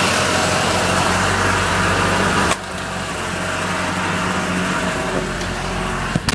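A 1974 BMW 2002's four-cylinder engine running steadily at a fast idle after a cold start. The sound drops abruptly about two and a half seconds in. There is a short, sharp knock near the end.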